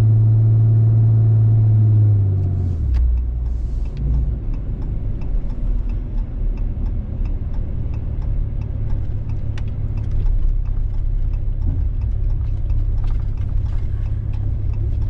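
Skid steer diesel engine running steadily, then dropping to a lower, rougher rumble about two and a half seconds in, with scattered light ticks and clatter as the machine works with its bush hog.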